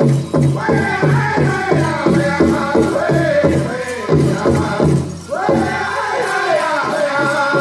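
Powwow drum group singing a prairie chicken dance song: high, wavering voices over a fast, even drumbeat of about four strokes a second, with the drum dropping back a little about five seconds in while the singing carries on. Jingling of the dancers' leg bells runs through it.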